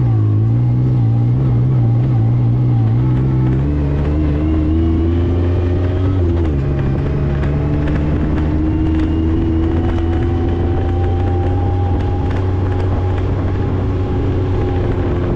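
Yamaha YXZ side-by-side's three-cylinder engine running under way. The revs climb, dip sharply about six and a half seconds in, then rise slowly again.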